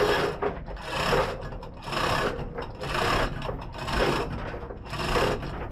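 Rhythmic rasping strokes, about one a second, each a short scraping rush of noise.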